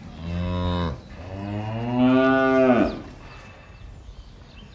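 A cow mooing twice: a short call, then a longer, louder one whose pitch drops as it ends.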